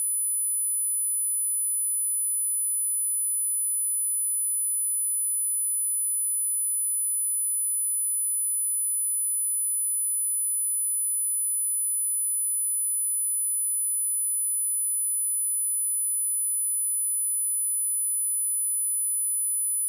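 A steady, high-pitched 10005 Hz sine-wave test tone, one pure pitch held unchanged at constant level.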